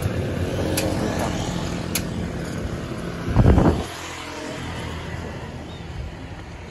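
Small motorbike engines running as they pass on the road, with a brief loud burst about three and a half seconds in. The engine sound then drops to a quieter background.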